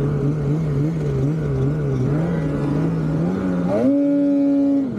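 Polaris 9R snowmobile's two-stroke engine running at wavering part throttle, then revving up sharply near the end and holding high for about a second before dropping off.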